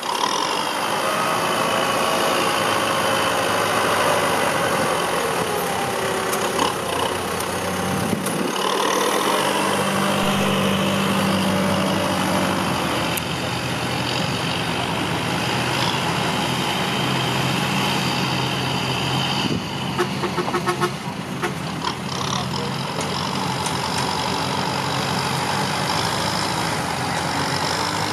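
Diesel engine of a working vehicle running steadily, its note shifting in pitch a couple of times, with a few short knocks about two-thirds of the way through.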